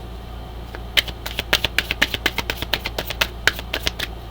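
A deck of oracle cards being shuffled and handled, a quick run of irregular card flicks and taps starting about a second in, over a steady low hum.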